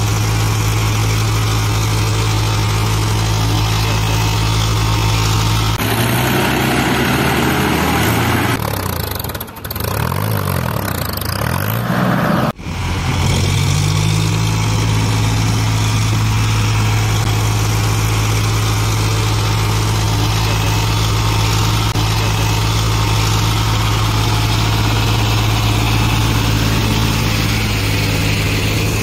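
John Deere tractor diesel engines running steadily under load. For several seconds near the middle the engine note wavers up and down, then breaks off sharply and settles back to a steady run.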